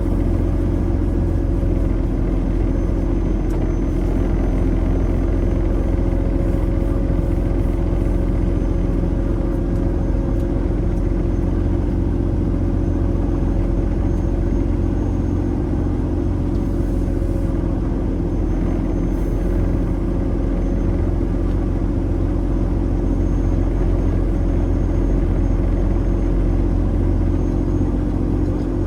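Semi truck driving at road speed: a steady engine drone and road rumble with an unchanging hum.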